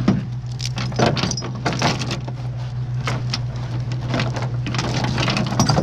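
Vehicle engine running with a steady low hum, under a scatter of irregular taps and knocks.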